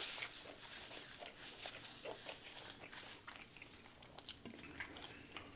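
Quiet chewing of food close to the microphone, with scattered small mouth clicks.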